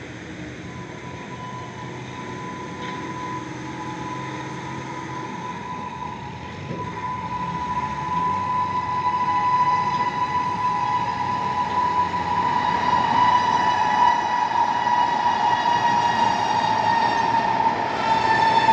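Indian Railways electric locomotive's horn sounding one long held note as an express train approaches. The horn grows steadily louder over the rumble of the oncoming train, and its pitch sags a little near the end as the train draws near.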